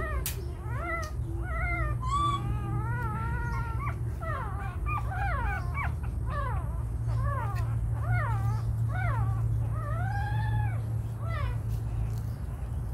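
A young animal crying in a rapid run of short, high whimpering calls, each rising and falling in pitch, about two or three a second, with one longer drawn-out call near the end; a low steady hum runs underneath.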